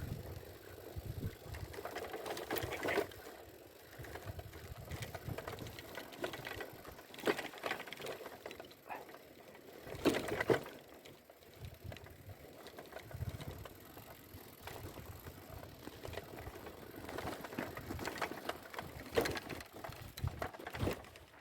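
Bicycle rattling and clicking as it is ridden over a rough track, with a few louder knocks from bumps.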